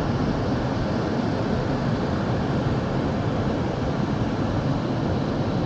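Waterfall: falling water making a steady, even rushing noise, heaviest in the low end.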